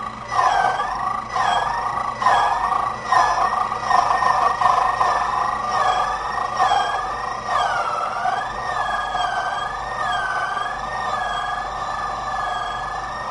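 HPC Code-A-Key key-cutting machine's cutter motor running with a steady whine, its pitch dipping and recovering again and again as the cutter bites into a Cisa key blank to cut a deep cut. A rough metal-cutting rasp comes with it through the first half.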